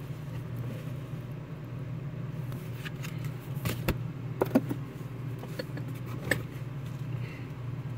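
Paper booklets and cards being handled and lifted out of a box, with a few light taps and rustles in the middle seconds, over a steady low hum.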